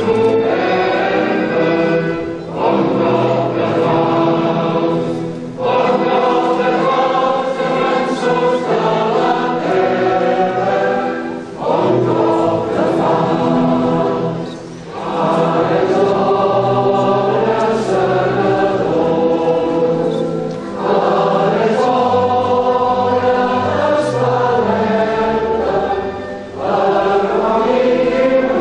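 Many voices singing a song together like a choir, in long sustained phrases with short breaks between them.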